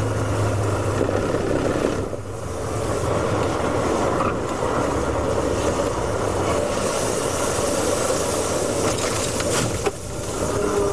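In-car sound of a classic Ferrari V8 race car backing off and coasting down. The engine hum drops away about two seconds in, leaving mostly wind and tyre noise, with a few knocks near the end as the car runs onto the grass. The car is overheating and spraying water, and is being pulled off the track.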